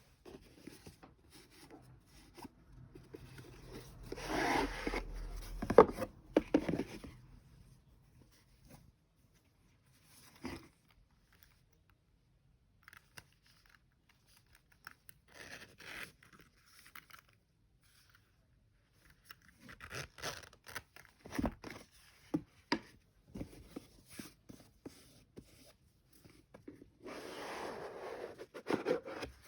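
Packaging being handled and opened: paper and cardboard rustling and rubbing, with light knocks and clicks, in several bursts separated by quiet pauses. The sharpest knock comes about six seconds in.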